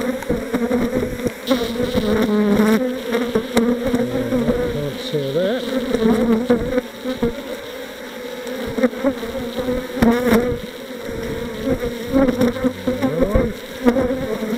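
Honey bees buzzing in a dense, steady hum around an opened hive, single bees' hums rising and falling in pitch as they fly close past. A few sharp knocks of wooden hive frames being handled, the loudest about ten seconds in.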